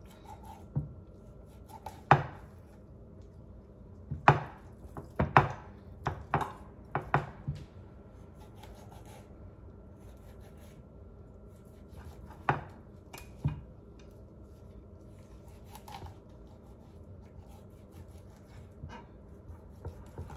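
Knife knocking on a cutting board while a whole fish is being cut, in irregular sharp knocks. A cluster of knocks comes about four to seven seconds in, and two more come a little after twelve seconds; after that there are only light handling sounds.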